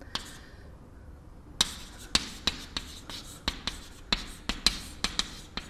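Chalk writing on a chalkboard: sharp taps and short scratches of the chalk stick as letters are written, several a second. A single tap comes just after the start, and the steady run begins about a second and a half in.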